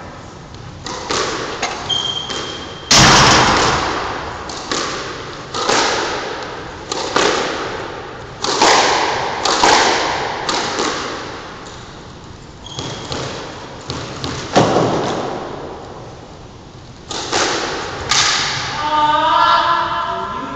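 Squash ball being struck by racquets and hitting the court walls during a rally: a sharp, echoing impact every second or so, each dying away in the hard-walled court.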